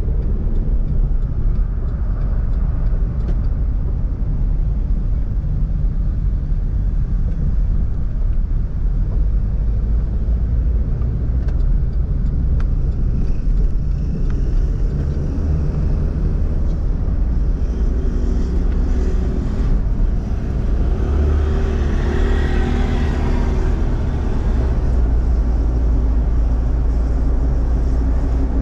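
Car driving along a city road: a steady low rumble of engine and road noise, with a stretch of louder engine sound a little over two-thirds of the way through.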